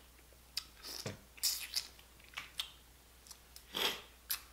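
Crawfish being peeled and eaten up close: a string of short shell cracks and clicks with wet chewing and mouth sounds, one longer wet burst near the end.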